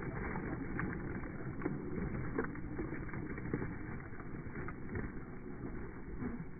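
WLtoys 12428 RC buggy rolling over loose gravel, heard in slow motion, so the sound comes out low and drawn out: a dense rumble of crunching stones with many scattered clicks.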